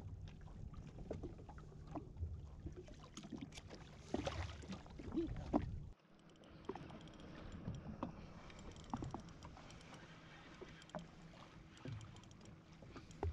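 Water slapping against the hull of a drifting Yamaha Waverunner jetski, with scattered small knocks and clicks from handling fishing rods and gear. The sound drops out abruptly about six seconds in and carries on with a slightly different tone.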